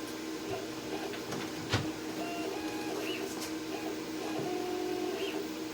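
Laser cutter running a cutting pass rather than scoring: a steady hum with short whirs of its head motors starting and stopping as it moves. A single sharp click about 1.7 seconds in.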